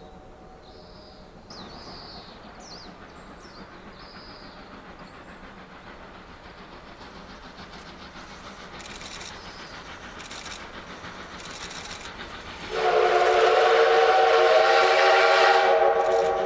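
Steam locomotive drawing near with faint, rising exhaust chuffs, then its steam whistle blows loud and steady for about three and a half seconds near the end. Faint bird chirps can be heard early on.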